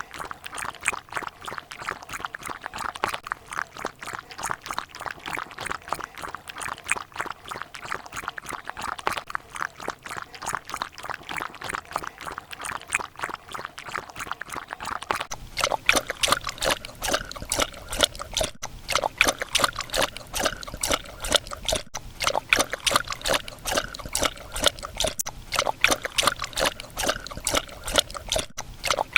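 A dog lapping water from a bowl: a quick, even run of wet slurps. About halfway through, a different dog takes over, with louder, sharper laps over a faint low hum.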